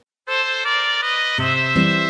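Background music starts after a moment of silence: a bright melody, joined about a second and a half in by a bass line with a steady beat.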